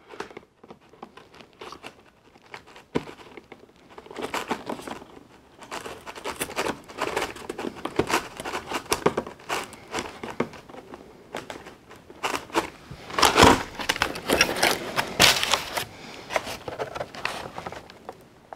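Plastic packing ties being worked back through the holes of a cardboard packaging tray with pliers: irregular crinkling, scraping and small clicks of cardboard and plastic, sparse at first and busier from about four seconds in.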